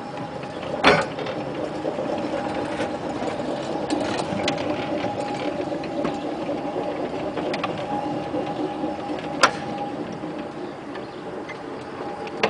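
1926 Whitcomb 4-ton storage battery mine locomotive running under power, its electric traction motor and gearing whining steadily as it pulls a loaded-looking mine car along narrow-gauge track. A few clicks and knocks from the wheels and couplings come through, with one sharp knock late on.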